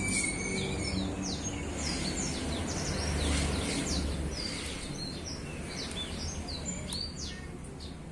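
Male chestnut-capped thrush (anis kembang) singing a continuous, varied song of quick, high, sweeping notes, over a low steady background rumble.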